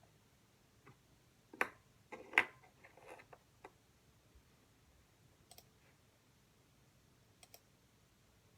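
A scatter of light clicks and taps, like small objects handled on a desk. The two loudest come about a second and a half in, followed by a short flurry, then a faint double click twice near the end.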